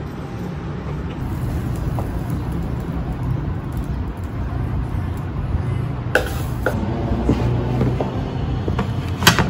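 Steady low rumble of construction machinery, with a couple of sharp knocks about six seconds in and near the end.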